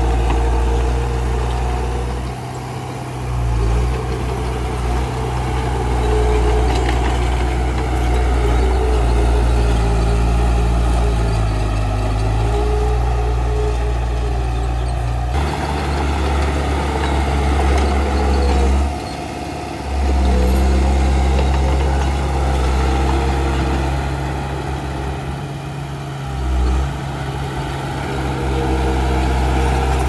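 Komatsu D31 bulldozer's diesel engine running under varying load. Its pitch and loudness shift every few seconds, with a sudden change about halfway through.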